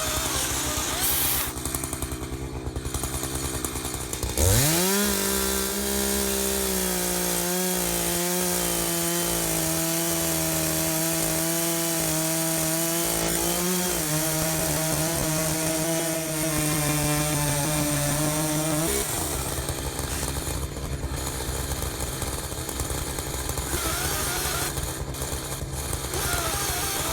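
Chainsaw cutting through a red oak log: it revs up to full speed about four seconds in, holds a steady high pitch that wavers slightly under the load, and drops away about nineteen seconds in. A rougher noisy sound runs before and after the cut.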